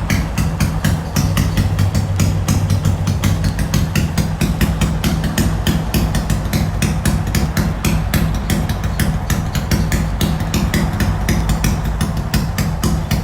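Honda Wave 125 motorcycle with a swapped-in MSX engine and full exhaust system, idling steadily with a rapid, even, choppy popping beat from the exhaust.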